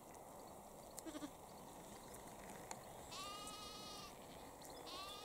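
A lamb bleating: one high, quavering bleat about three seconds in, lasting about a second, and a second, shorter bleat starting near the end.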